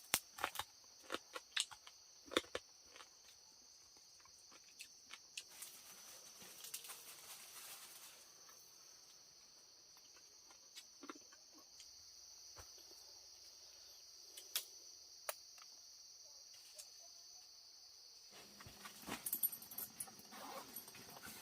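Steady insect chorus of crickets trilling in one high band. Scattered sharp clicks and snaps in the first few seconds, and louder rustling and crackling from near the end.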